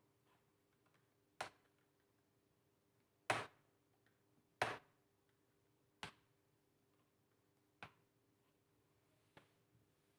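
Six short, sharp clicks a second or two apart from hand work on a Dell Vostro 3501 laptop's underside during disassembly, as tools and parts knock against the plastic case.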